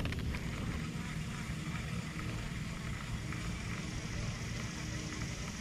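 Steady hum of distant road traffic, with no distinct events.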